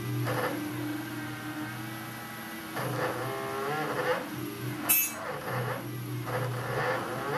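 NEMA 34 stepper motors driven by a TB6560 driver board while running a G-code toolpath, whining in tones that glide up and down in pitch as the motors speed up and slow down, with some sputtering. A sharp click about five seconds in.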